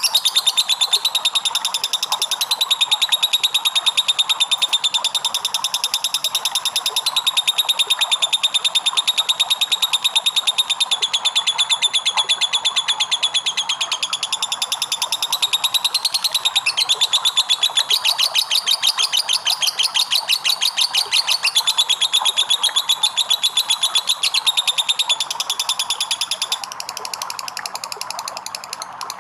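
Lovebird 'ngekek': a long, rapid rattling trill of fast repeated high chirps, running in long strings with a brief break about halfway through and a quieter stretch near the end.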